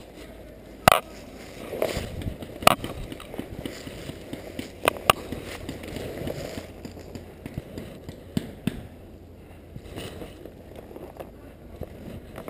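Brush and clothing rustling as a paintball player moves low through undergrowth, with a few sharp pops or cracks in the first half, about four of them. After that it settles to a quieter rustle.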